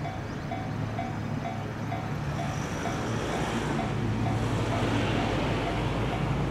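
A train running past on the rails, its rumble and hum growing louder about halfway through, while a railway level-crossing alarm rings a steady two-tone ding about twice a second.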